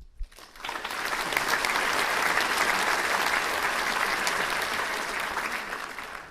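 Audience applauding, a dense patter of many hands clapping that starts about half a second in and eases a little near the end.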